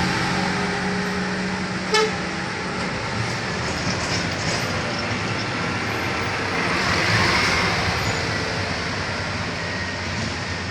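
Motor vehicles on a road. A heavy engine runs steadily and fades within the first second, a brief sharp sound comes about two seconds in, and another vehicle passes with a swell of noise that peaks around seven seconds and then dies away.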